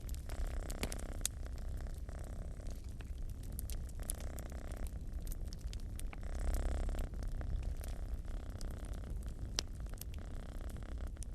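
Cat purring, the purr rising and falling with each breath every second or two, over a wood fire crackling with scattered sharp pops.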